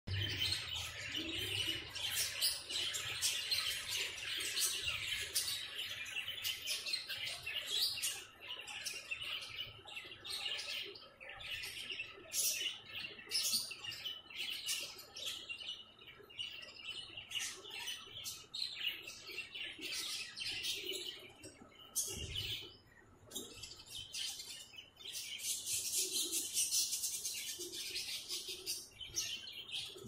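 Small birds chirping busily: a quick, dense stream of short high chirps with brief gaps.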